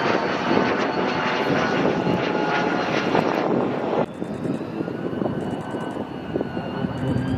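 Lockheed U-2's single jet engine: a loud rushing jet noise as it flies overhead, dropping suddenly about four seconds in to a quieter, steady whine as it comes in low on approach.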